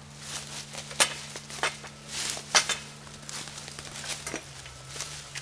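Sharp snaps, cracks and knocks, with rustling of brush and dry leaves, as a honeysuckle bush is levered out of the ground with a Shrub Buster lever tool and worked back and forth to break its roots free. The loudest sharp cracks come about a second in and again about two and a half seconds in.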